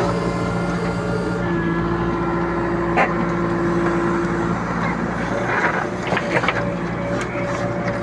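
Backhoe loader's diesel engine running steadily while loading a tipper truck, with a sharp clank about three seconds in and a few knocks a couple of seconds later.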